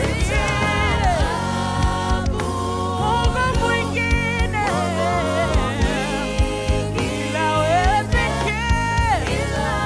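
Gospel song with a lead voice singing over a band, with a steady beat.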